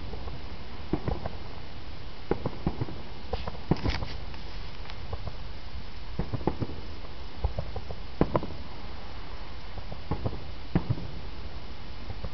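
Distant fireworks going off: scattered sharp pops and cracks, some in quick little clusters, over a steady low rumble.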